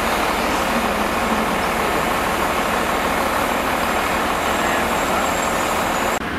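Railway locomotive running, a steady loud rumble and hiss that cuts off suddenly near the end.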